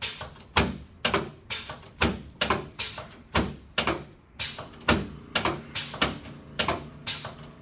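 Handheld chiropractic adjusting instrument firing a long series of sharp clicks, about two or three a second, each one a quick thrust delivered to the patient's body.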